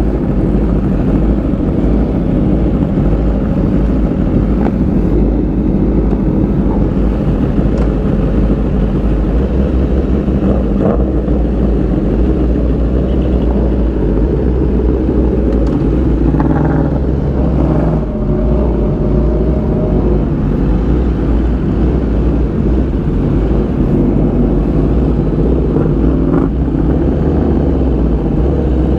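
Honda CBR1000RR-R Fireblade SP's inline-four engine idling steadily through an SC Project exhaust with the catalytic converter deleted, a loud, even rumble.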